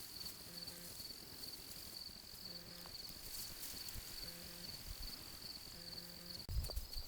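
Crickets chirping in a steady, high, pulsing trill. A faint low tone repeats about once a second underneath, and low thumps come in near the end.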